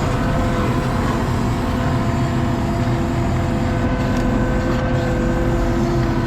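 ASV RT-40 compact track loader running steadily under work, its engine and hydraulics making a constant drone with a steady whine on top, as it handles wood with a grapple attachment.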